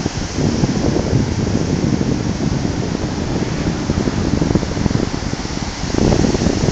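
Wind buffeting a phone's microphone at the seashore: a loud, steady rush that swells briefly about six seconds in.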